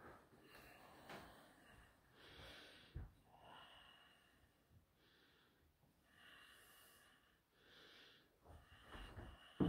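Faint, slow breathing close to the microphone, a soft swell every second or two. A few soft thumps, the loudest near the end.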